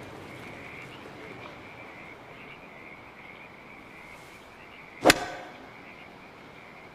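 A golf club hits a ball once with a sharp crack, about five seconds in, the loudest sound here. Under it runs a steady, pulsing trill of an evening frog chorus.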